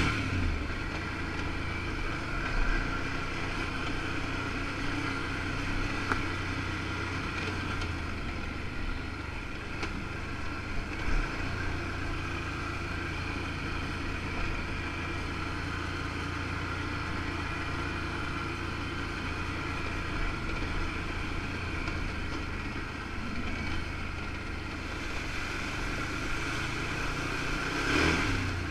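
2013 Can-Am 1000 XT ATV's V-twin engine running steadily as the quad rides along a trail, with a few brief louder surges.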